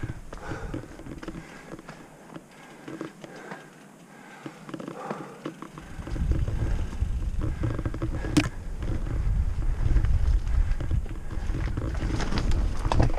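Mountain bike ridden along a rough dirt singletrack: wind rumbling on the microphone, which eases off for a few seconds and then returns strongly as the bike speeds up, with the bike rattling and clicking over the ground. A single sharp knock sounds about eight seconds in.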